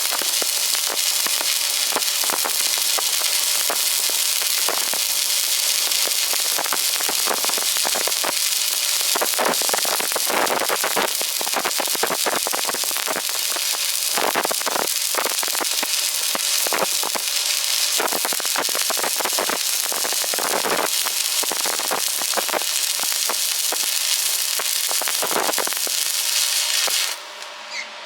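Stick (arc) welding: the arc crackles and sputters steadily, then breaks off abruptly about a second before the end.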